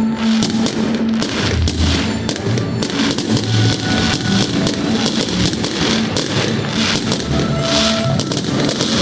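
Fireworks exploding in quick succession, many sharp bangs and crackles a second, mixed with loud music that has a steady low bass line.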